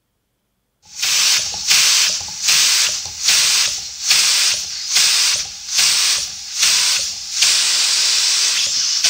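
Pneumatic pruning shears running on compressed air: a hiss of air starts about a second in and pulses roughly every 0.8 s as the blades open and close. It turns into a steady hiss near the end.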